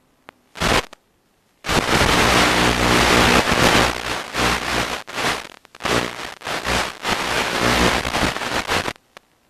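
Loud hiss of static with a low buzz from an analog FPV video receiver's audio output, coming in a short burst about half a second in and then almost continuously from just under two seconds in until about nine seconds, chopped by brief drop-outs. It is the noise of a weakening video link while the quad sits low in tall grass.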